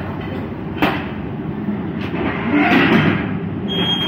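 Metal knocks and a rattling clatter from loading-dock equipment being handled at the trailer's edge, over a steady low rumble. There is a sharp knock about a second in and a louder clatter near three seconds, then a brief high beep starts near the end.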